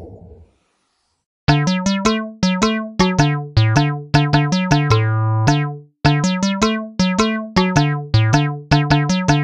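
Bouncy cartoon-style jingle of short, plucked synthesizer keyboard notes in a quick, jumpy rhythm, starting after a second or so of silence.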